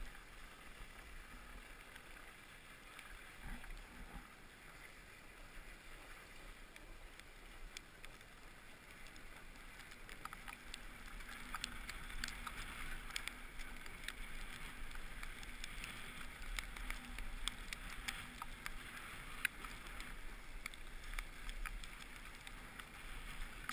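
Steady hiss of edges sliding and scraping over packed snow during a descent of a ski run, getting louder about halfway through, with scattered sharp clicks and a low rumble underneath.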